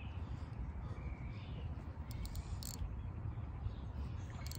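Wind rumbling on the microphone, with a few short bird calls over it.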